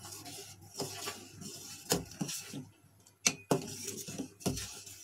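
Steel ladle clinking and scraping against the inside of a stainless steel pot while stirring raw-mango syrup, with about half a dozen irregular clinks.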